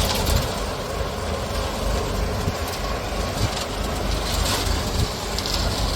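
Self-loading concrete mixer running: a steady engine and machinery noise, strongest in the low end, with brief hissy swells about halfway through and again a second later.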